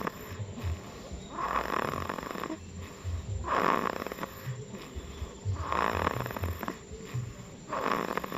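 A person snoring in sleep: a raspy snore about every two seconds, four in all, with a low rumble between them.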